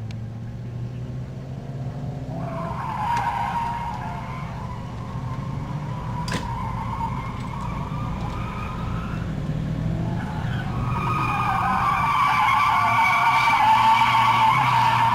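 Nissan 'Sil80' (a 240SX hatchback with a Silvia front end) drifting: engine running under load while the rear tires squeal in long wavering tones. The squeal starts a couple of seconds in, eases off briefly past the middle, then comes back louder as the car draws close near the end.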